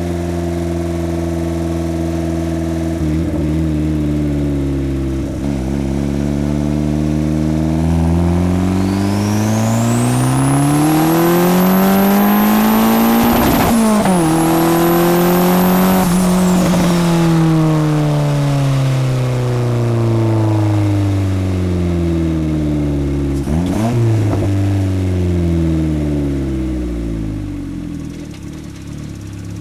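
Turbocharged Honda Civic D16 four-cylinder engine pulling hard, its note climbing together with a rising turbo whistle, broken briefly near the middle before it climbs again. Then the throttle closes and the engine note falls steadily as it slows.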